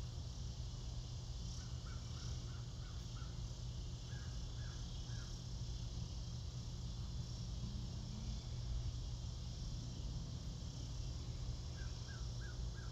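Evening chorus of crickets, a steady high buzz, with a few short runs of quick repeated chirps, over a low steady rumble.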